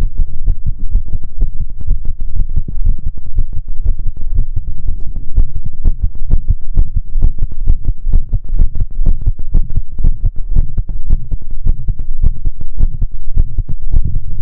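Heartbeat recording: deep, muffled thumps repeating over a continuous low rumble.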